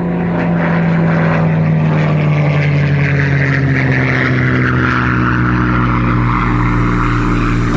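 Supermarine Spitfire's V12 piston engine running as the fighter flies low. The drone's pitch sinks slowly over several seconds.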